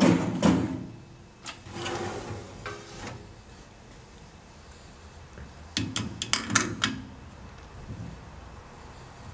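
Clattering knocks that die away within the first second, a few scattered knocks after, then a quick cluster of sharp clicks and clunks about six seconds in.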